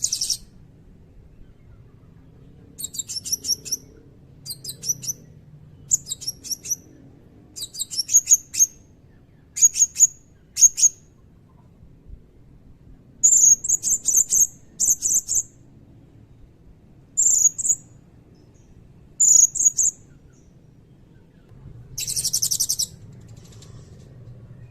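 Blue-crowned hanging parrot (serindit) calling: clusters of short, very high-pitched shrill trilled notes, a dozen or so in all, with one longer buzzy burst near the end.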